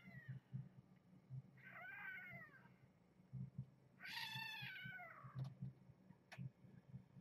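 Newborn kitten mewing: three high, arching cries, the longest about four seconds in, as the mother cat shifts and licks the litter, the kind of loud squeak kittens give when mama moves on them.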